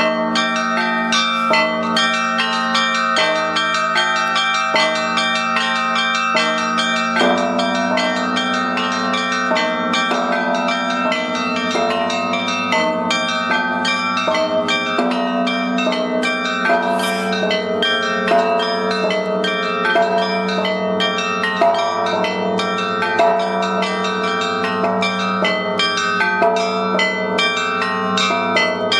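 Russian church bells being rung in the Orthodox zvon style: small bells struck in rapid, dense patterns over the sustained tones of larger bells. A deeper bell comes in strongly about seven seconds in.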